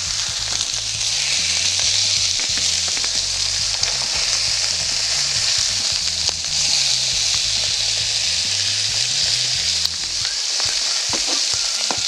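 Fish fillets sizzling steadily in a pan over high heat, with a few light clicks near the end.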